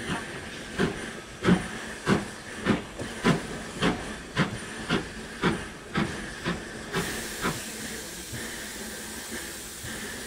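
Steam locomotive, the LNER B12 4-6-0 no 8572, working slowly with a regular chuff about every half second that fades away after about seven seconds, followed by a steady hiss of steam.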